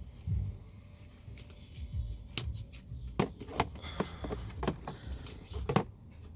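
Scattered plastic clicks and scraping as a cabin air filter is worked out of its housing behind the glove box of a 2002–2006 Toyota Camry, over low handling bumps.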